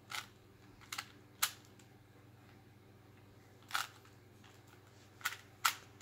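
Plastic Rubik's Cube layers being turned by hand, giving short, sharp clacks at irregular intervals: a quick cluster in the first second and a half, a pause, then a few more near the end.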